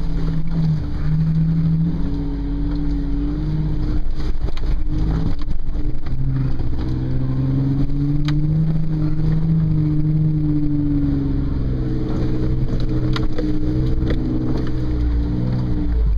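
Toyota FJ Cruiser's V6 engine running at low speed, heard from inside the cabin; its pitch rises and falls as the throttle is worked over rough trail. Occasional sharp clicks and knocks are heard.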